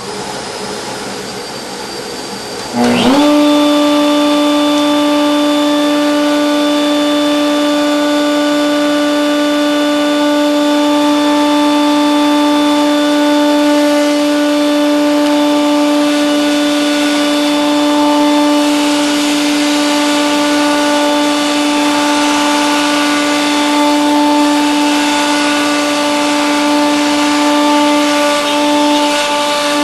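Table-mounted router starting up with a quick rising whine about three seconds in, then running at a steady high pitch, over the steady rush of dust extraction. From about two-thirds of the way through, a broader hiss joins in as the bit cuts into the pivoting board.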